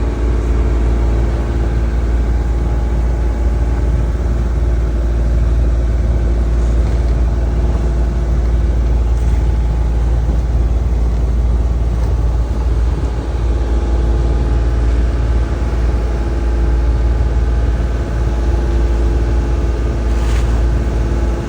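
A sailing yacht's auxiliary engine running steadily at constant speed, with a heavy low rumble beneath its even hum.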